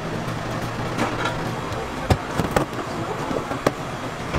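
Street ambience with a steady traffic hum, broken by a few sharp clicks and knocks about two seconds in and again near the end.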